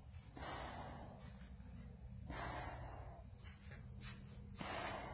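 Three slow breaths drawn through a half-face respirator, about two seconds apart, in a Darth Vader impression.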